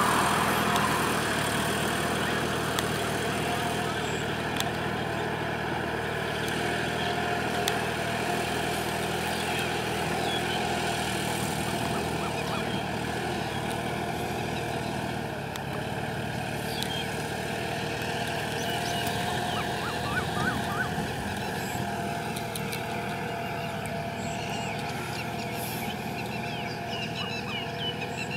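Kubota tractors' diesel engines running steadily under load while ploughing a flooded rice field, a continuous even drone.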